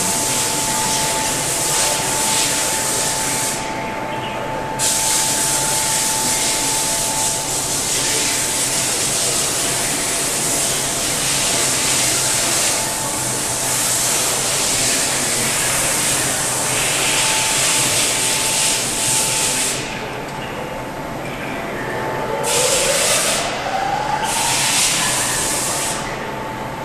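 Loud steady hiss of blowing air over a faint steady whine. The hiss cuts off sharply about four seconds in and twice more near the end, and a rising whine glides up shortly before the end.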